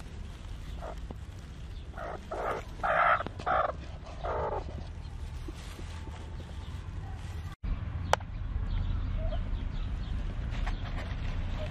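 Broody hen clucking, about five short calls between two and five seconds in, over a steady low rumble. A sudden cut about two-thirds of the way through, with a sharp click just after; the low rumble is louder from then on.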